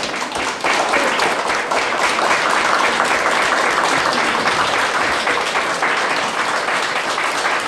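A roomful of people applauding, steady clapping throughout.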